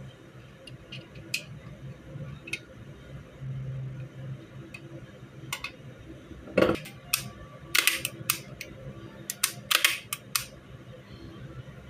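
Sharp metallic clicks and clacks of a Beretta 92FS pistol and its small parts being handled during reassembly, a few scattered at first, then a quick run of louder clicks in the second half.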